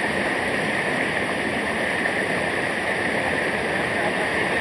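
Steady rush of a waterfall or fast mountain stream, an even noise with no breaks.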